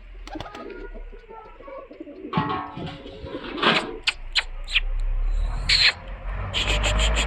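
Domestic pigeons cooing, with sharp clicks mixed in and a fast, even run of sharp ticks near the end.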